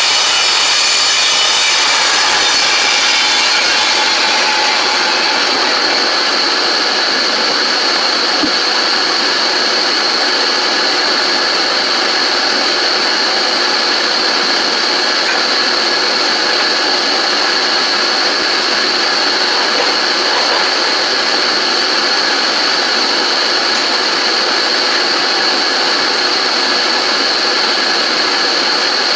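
Electric woodworking power tool running steadily with a high whine. The rougher sound of a cut through wood fades out in the first few seconds while the motor keeps running.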